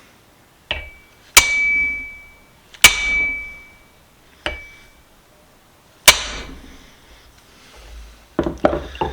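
Hammer blows on a steel punch set against the rusted-in lower-jaw pin of a cast pipe wrench: single strikes a second or more apart, several ringing with a clear metallic tone, then a quick run of strikes near the end. The pin is stuck and not moving.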